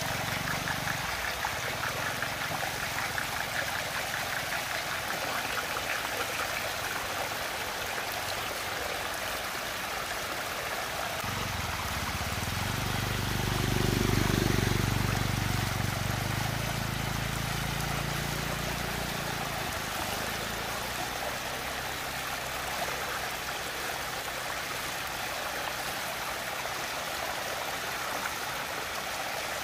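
Water swirling and draining down a whirlpool vortex: a steady rushing, splashing flow. A low rumble swells up near the middle for several seconds, then fades.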